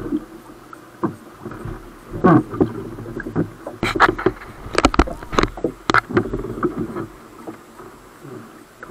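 Lake water slapping and splashing irregularly against the hull of a waverunner sitting in the chop, with a few louder slaps in the middle.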